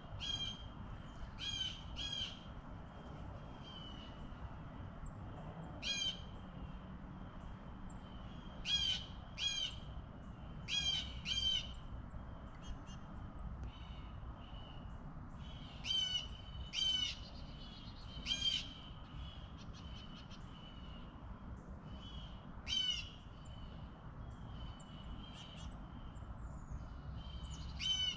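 A bird calling in short repeated calls, often two in quick succession, about a dozen over the stretch, over a faint steady low background hiss.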